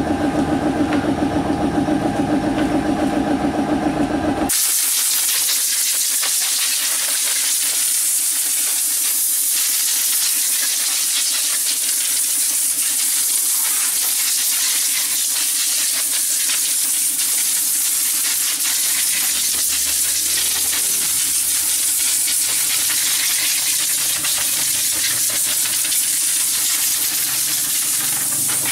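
A 1/2 HP air compressor runs with a pulsing hum, then stops abruptly about four seconds in. At that moment compressed air starts hissing steadily from an air-duster gun blowing dust out of a computer case.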